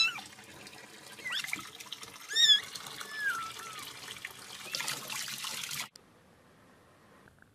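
A kitten mewing in short, high-pitched cries, four or five times, over a tap running into a sink. Both sounds cut off suddenly about six seconds in.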